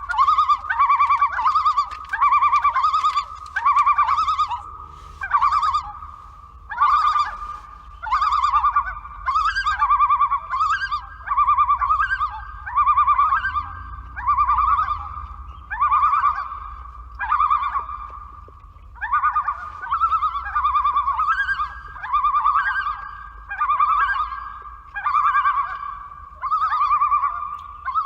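Common loons giving their tremolo ("laughing") call: a rapid, wavering call repeated about once a second, with a short break about 18 seconds in.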